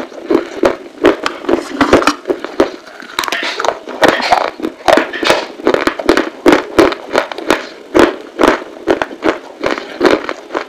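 Close-miked chewing of crunchy baked clay: a steady run of crisp crunches and crackles, two or three strong ones a second.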